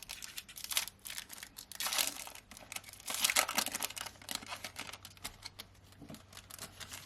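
Foil trading-card pack wrapper being torn open and crinkled, with cards slid out and handled: a run of rustles and crackles, loudest about two and three seconds in.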